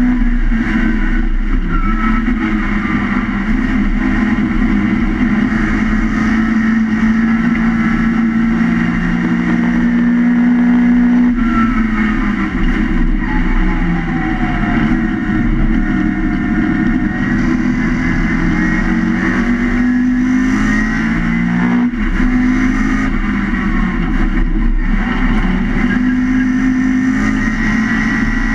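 A historic Mini Cooper race car's Swiftune-built A-series four-cylinder engine, heard from inside the stripped cabin, running hard at racing speed. Its pitch falls and climbs again several times, with a higher whine rising and falling over it.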